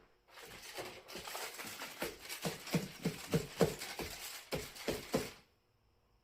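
A quick run of scuffing, dabbing strokes as paint is worked on a 3D-printed plastic logo stamp. The strokes come about three a second, grow stronger partway through, and stop abruptly about a second before the end.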